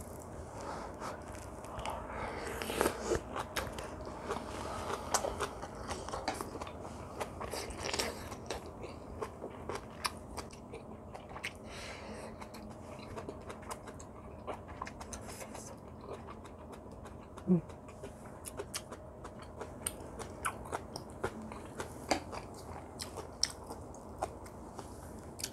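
A person chewing and biting braised kimchi wrapped around rice, with many short wet smacks and crunches.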